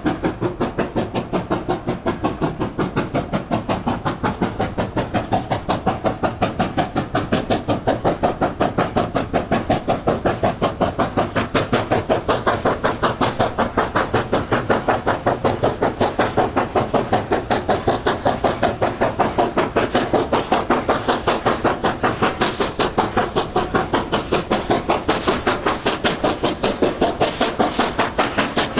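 China Railways JS class steam locomotive under way with a train, its exhaust beating in a rapid, even rhythm of several beats a second that runs on without a break.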